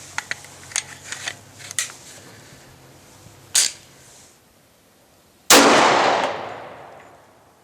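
Light clicks and handling noise, then a single loud gunshot about five and a half seconds in, ringing out and fading over about two seconds.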